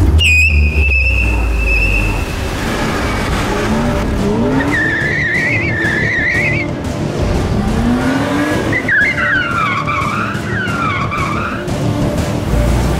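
BMW M2's tyres squealing as the car slides in a drift, opening with a sharp hit and a steady high squeal. Wavering squeals follow twice, each after its turbocharged straight-six revs up.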